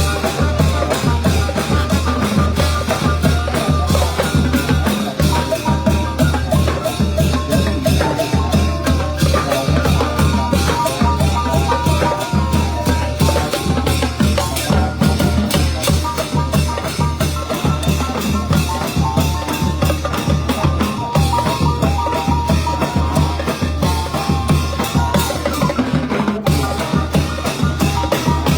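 Thai brass band (trae wong) playing: a bass drum and cymbals beat a steady, driving rhythm under held brass melody notes.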